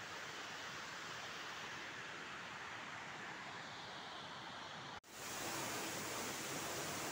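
Steady rushing noise, with a sudden break about five seconds in. After the break it comes back louder and brighter as the close-up rush of a waterfall splashing onto rocks.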